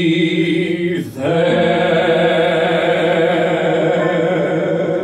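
Two male voices singing the duet's closing phrase in musical-theatre style. A short break comes about a second in, then they hold one long final note with vibrato.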